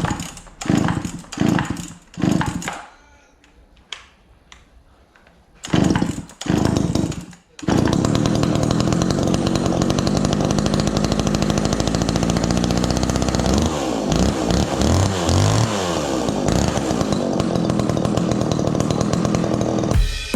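Two-stroke chainsaw engine with a diaphragm carburettor firing in a few short bursts, then catching about eight seconds in and running steadily. It is revved up and down a few times in the middle and stops abruptly at the end.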